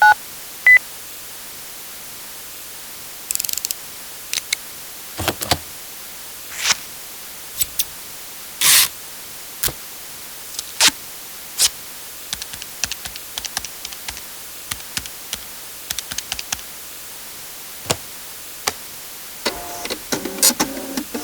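A run of separate office-supply sound effects: single clicks, snaps and knocks, then clusters of small quick clicks, and a rattling series of clicks near the end. It opens with two short electronic telephone beeps.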